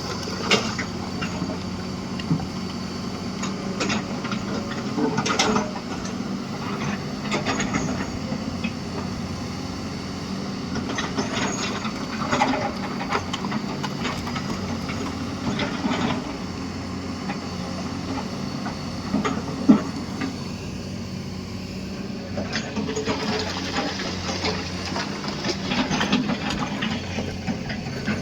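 Excavator's diesel engine running steadily under load, with scattered knocks and clatters from the bucket working rock and soil.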